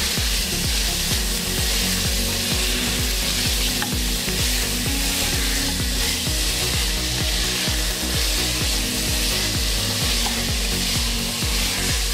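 Curry ingredients frying in a pan, with a steady sizzling hiss. Background music plays underneath.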